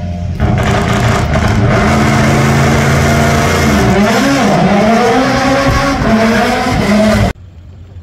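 Rally car engine held at high revs, loud and steady. About halfway through the revs drop briefly and climb again, and near the end the sound cuts off suddenly.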